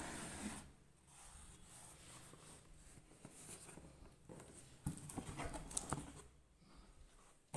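Cardboard carton flaps handled and rubbed: faint scraping and rustling with a few soft knocks of the boxes about five and six seconds in.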